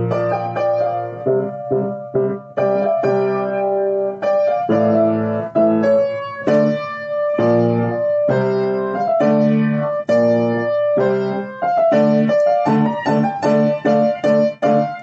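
Piano music: a melody of struck notes over sustained chords at a steady, moderate pace.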